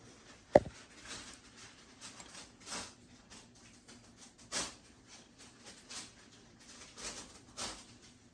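Bicycle crankset parts being handled: one sharp metallic clink with a short ring about half a second in, then scattered light scrapes and rustles.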